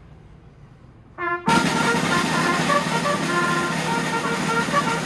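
A loud blast of several horns sounding together for about four seconds, several steady tones at once, cut off abruptly, with a short single tone just before it.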